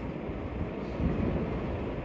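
Steady low rumbling background noise, with no chanting or singing in it.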